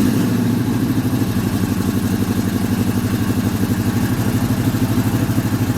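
Supercharged, carbureted Cutlass engine idling cold with a steady, even pulsing. An exhaust leak at the rear header bolt is still in the sound, where the header gasket has been pushed up; refitting one bolt has quieted it down a lot.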